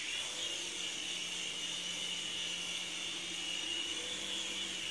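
The tiny 6 mm motors of a MingJi no.901 toy infrared RC helicopter spin up with a brief rising whine, then run at a steady high-pitched whine as the helicopter lifts off the table and hovers.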